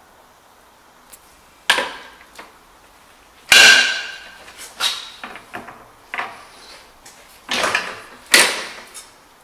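A series of sharp metallic clanks and knocks from a manual sheet-metal folder as a small steel workpiece is set and clamped in it for a bend. The clanks come at irregular intervals, about six in all; the loudest comes about three and a half seconds in and rings briefly.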